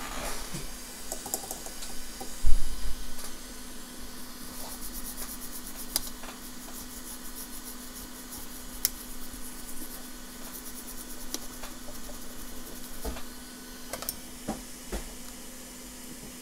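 Light scrubbing and clicking of a small brush and tools cleaning flux off an iPhone logic board, with a quick run of scratching strokes in the middle and a louder knock early on, over a steady low hum.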